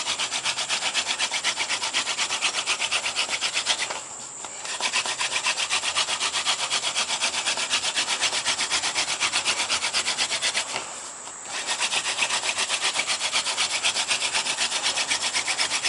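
Hand-drill friction fire: a yucca spindle twirled fast between the palms, grinding into a paulownia hearth board with a quick, even rubbing rhythm. Two short pauses come about a quarter and two thirds of the way through. The drilling is building up hot dust, and an ember forms by the end.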